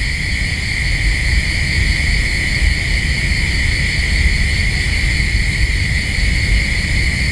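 A steady high-pitched drone over a low, fluctuating rumble, unchanged throughout.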